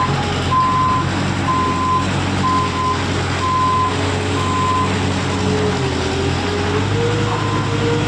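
JCB 155 skid steer loader reversing, its backup alarm beeping about once a second over the running engine. The beeps stop about five seconds in, and the engine pitch then rises slightly.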